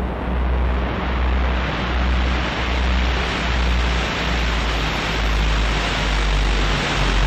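Electronic rushing noise over a deep, unevenly pulsing bass rumble, a sound-effect lead-in to the opening theme music.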